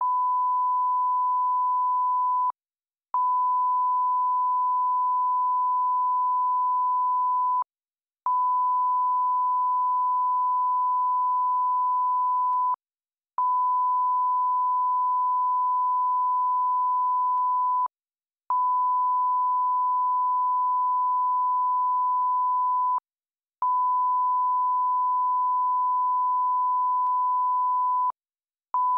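Television test-card line-up tone: a single steady pure tone, broken by a short gap of about half a second roughly every five seconds, with a faint click at each break.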